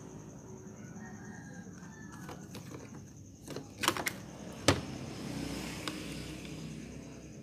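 A few sharp clicks and knocks from tools being handled on a workbench while a washing-machine control board is worked on. They are the loudest sounds, bunched a little under four seconds in with one more just under five seconds, over a faint steady high whine.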